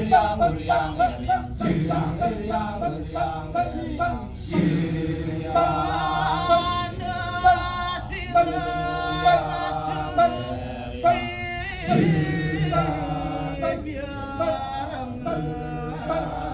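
Kecak chorus: a large group of men chanting a cappella. For the first few seconds the voices come in quick, choppy 'cak' syllables. About four seconds in they swell into long held chanted chords, and the choppy rhythm returns near the end.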